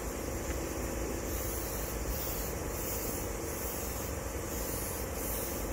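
Short hisses of yellow paint being sprayed onto an excavator boom, several separate bursts about a second long, over a steady low machine hum.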